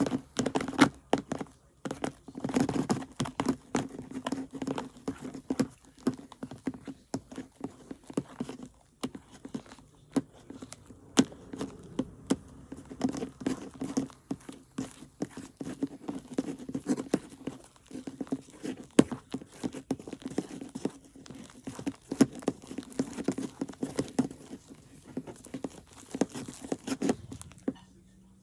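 Sticky, not yet fully activated fluffy slime (glue and shaving foam) being kneaded and stretched by hand, giving a dense, irregular run of sticky clicks.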